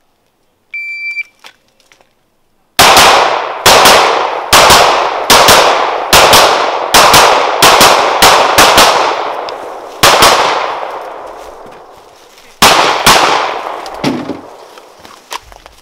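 Electronic shot-timer start beep, then a fast string of handgun shots, often in quick pairs, each ringing out through the woods, with a couple of short pauses as the shooter moves between target positions.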